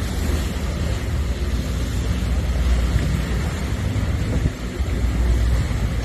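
Storm wind gusting on the microphone in a deep, uneven rumble, over rough water surging and splashing against a concrete pier. The gusts ease briefly about four and a half seconds in.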